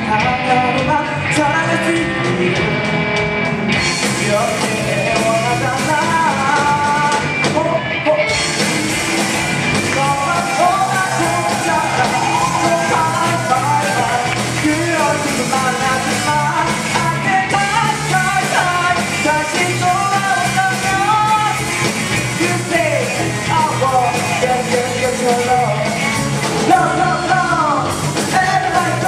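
Live rock band playing: a young vocalist singing over electric guitars and a drum kit. The band grows fuller about eight seconds in.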